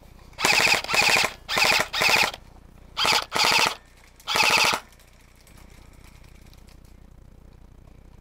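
Airsoft electric gun firing seven short full-auto bursts within about four seconds, each a rapid rattle of shots.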